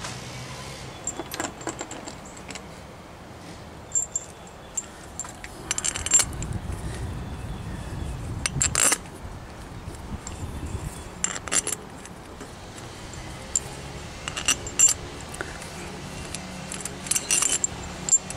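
Steel bolts clinking against one another in a hand and tapping on the compressor's cylinder head as they are set into its bolt holes: scattered light metallic clicks, in small clusters every few seconds.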